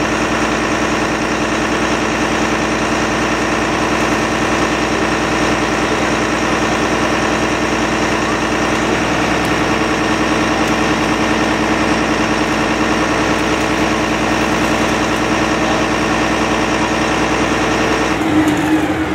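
Engine of a fire brigade aerial platform truck running steadily, driving the hydraulics that lower the platform basket. Near the end the sound changes and partly drops away as the basket comes down.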